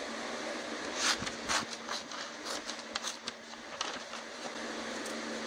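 A sheet of notebook paper handled on a workbench: a few short rustles and crinkles in the first few seconds, over a steady background hiss and low hum.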